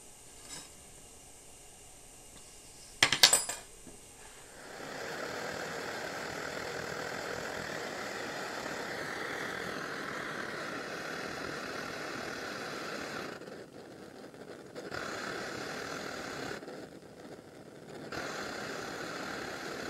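A brief loud clatter about three seconds in, then the Svea 123R white-gas stove's burner running with a steady rushing hiss. It falls away twice in the second half, as the flame is turned down with the control key to test the shutoff.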